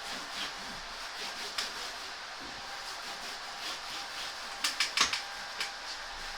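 Cloth wiping a wall with repeated rubbing strokes, broken by a quick run of four or five sharp taps or clicks about four and a half seconds in.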